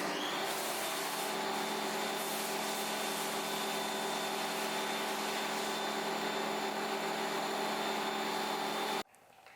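Pressure washer running and spraying through a foam cannon: a steady hiss of spray over a motor hum with several steady tones. It starts suddenly and cuts off abruptly about nine seconds in.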